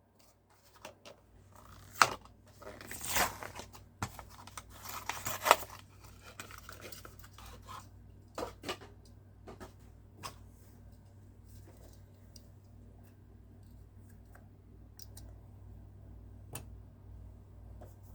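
Toy packaging being handled: several crinkling, rustling stretches in the first six seconds, then scattered light clicks and ticks.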